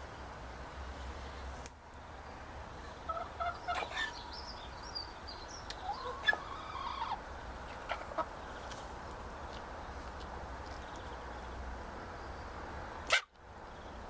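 Chickens giving short pitched calls in two clusters, with brief sharp chicken sneezes among them. A single loud sharp click comes near the end.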